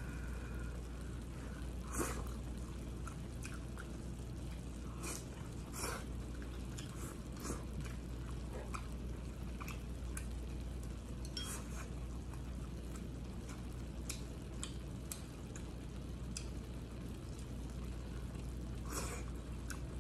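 Close-up eating sounds: wet chewing with scattered short clicks of chopsticks against a plate, over a steady low hum.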